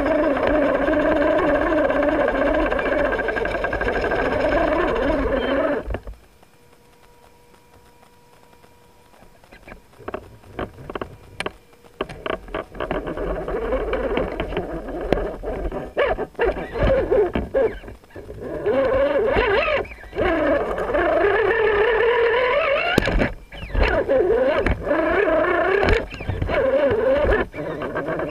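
RC rock crawler's motor and gear drivetrain whining, the pitch rising and falling with the throttle. It stops about six seconds in, then starts again with scattered clicks and knocks as the crawler climbs over rock.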